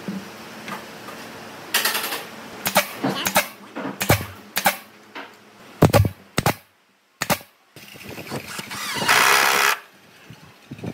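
Workshop work on wood: a run of sharp knocks and clatters at an uneven pace, then a burst of hissing noise lasting about a second, about nine seconds in.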